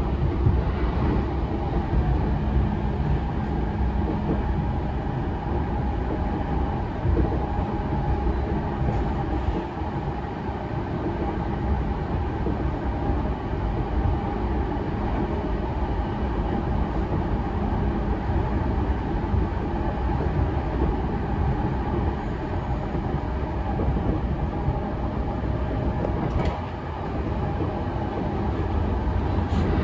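Running sound heard inside the car of a JR East E233-0 series electric commuter train at speed: a steady rumble of wheels on rail with a faint motor hum. A brief sharp click comes near the end.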